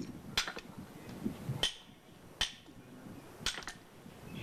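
Hammer knocking on stone: about six sharp, irregular taps.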